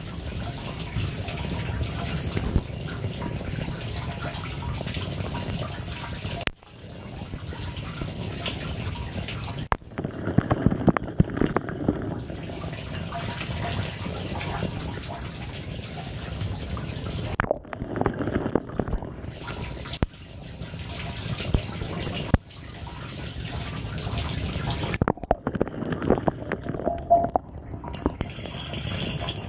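Water spraying and splashing in a Samsung dishwasher during a wash cycle, a steady rush that breaks off abruptly and resumes several times.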